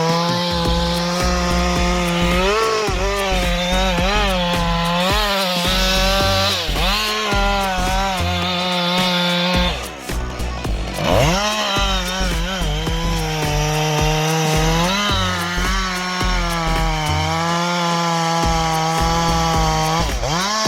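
Chainsaw engine running at high revs while cutting into wood, its pitch sagging again and again as the chain bites. The revs drop away and climb back up about ten seconds in.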